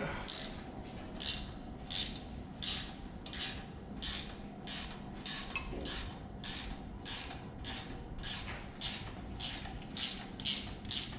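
Hand ratchet wrench clicking in steady strokes, about two a second, backing out an exhaust manifold bolt on a Ford 302 V8.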